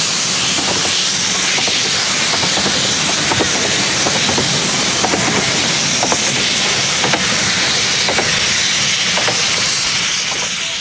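15-inch-gauge steam train passing and running away: a loud, steady hiss with the wheels clicking at irregular intervals as the coaches go by.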